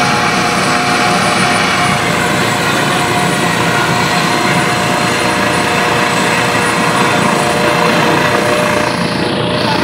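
Helicopter with a fenestron (ducted) tail rotor running on the ground with its main rotor turning: a loud, steady engine whine over the rotor and exhaust noise.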